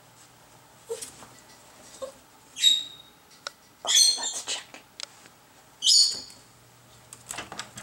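Norwich terrier whining at a closed door: three short, high-pitched whines about a second and a half apart, the middle one the longest, with a few faint clicks between.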